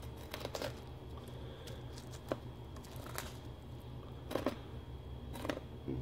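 Filleting knife scraping and ticking against the rib bones of a large red sea bream as the fillet is cut slowly off the frame: a handful of light, scattered clicks over a steady low hum.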